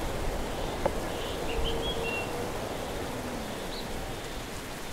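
A few short, high bird chirps, about one and a half seconds in and again near four seconds, over a steady outdoor hiss of wind or moving water.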